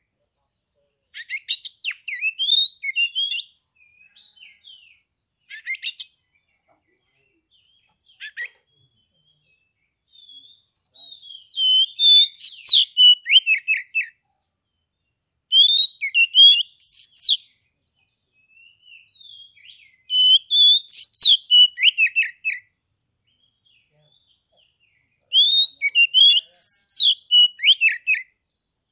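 Oriental magpie-robin (kacer) singing: loud bursts of varied, rapid whistled notes and trills, several song phrases a few seconds apart with silent pauses between.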